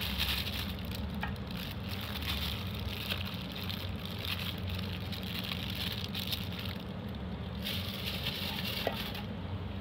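A gloved hand squishing and mixing wet chili paste in a metal pot: patchy wet squelching and plastic rustling that come and go, over a steady low hum.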